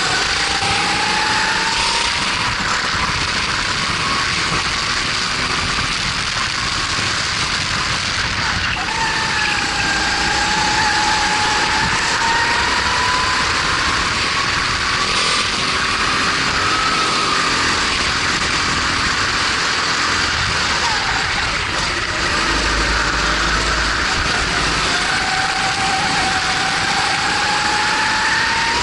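Racing kart's Honda GX270 single-cylinder four-stroke engine at racing speed, its pitch climbing steadily on the straights and dropping off sharply for the corners several times, over a constant rush of wind noise.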